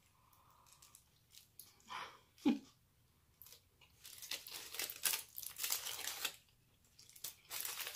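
Foil and paper food wrappers crinkling and rustling in repeated bursts, with a brief low thump about two and a half seconds in.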